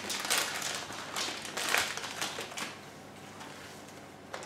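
Plastic candy packet crinkling as it is handled and opened, a run of quick crackles that dies away about three seconds in.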